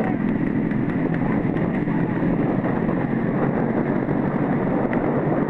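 Steady running of motorcycle engines moving at speed alongside a racing horse cart, with wind buffeting the microphone.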